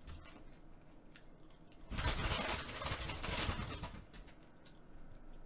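A person chewing crispy shoestring French fries close to the microphone: a few faint clicks, then about two seconds in a crunchy, crackly stretch of chewing lasting some two seconds.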